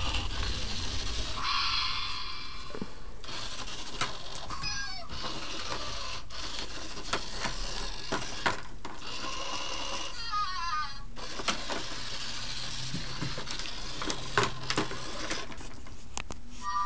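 Zhu Zhu Pets robotic hamster toy running in its plastic track: a steady whir with short electronic chirps, including a quick run of rising chirps about ten seconds in. Sharp plastic clicks and knocks come as cats paw at the toy and track.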